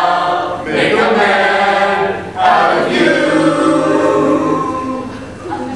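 Small mixed-voice student choir singing a cappella in held chords, with fresh phrases coming in about a second in and again at about two and a half seconds, growing softer near the end.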